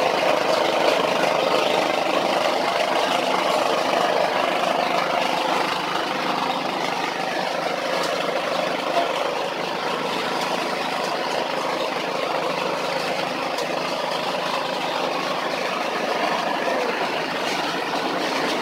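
Forage and grass chopper driven by a small petrol engine, running steadily as material is fed into the cutter.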